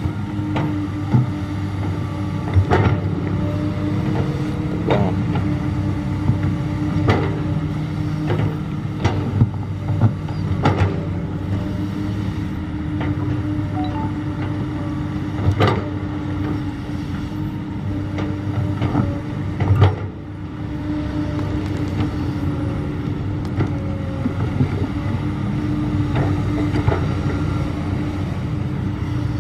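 Crawler excavator's diesel engine running steadily under digging load, with a constant hum and sharp metallic clanks every few seconds as the boom and bucket work through wet mud.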